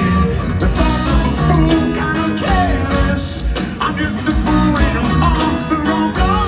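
Live rock band playing a song in a large amphitheater, heard from the audience: drums, bass and guitars, with the lead singer's voice.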